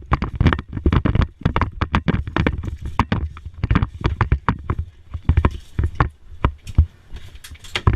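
Rapid, irregular knocks and thumps, several a second, heavy in the bass.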